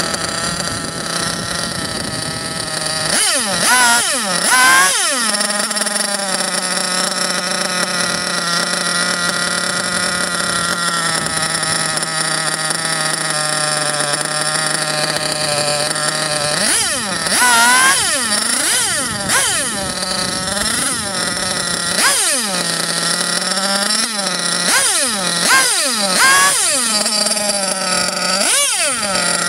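.28 nitro RC buggy engine running on the bench with its tuned pipe while its carburetor is tuned. It holds a steady high idle, broken by quick throttle blips that rise and fall in pitch: a pair a few seconds in, then a string of them through the second half.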